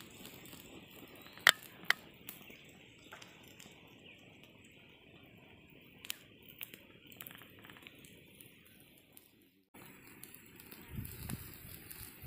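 Small open fire of dry twigs crackling quietly, with two sharp pops about a second and a half in and a few fainter ticks later. Near the end, rustling and knocks as the burning sticks are pushed aside by hand.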